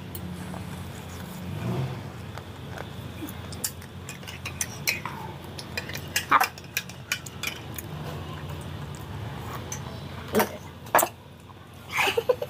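Metal cutlery clinking against a ceramic plate and mug: scattered light ticks and a few sharp clinks, one as a spoon is worked in the mug about six seconds in, over a low steady hum.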